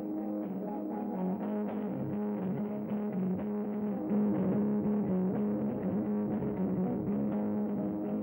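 Loose rock band improvisation: droning, sustained electric guitar and string tones, with irregular percussive strokes from drums and a hand-held tambourine.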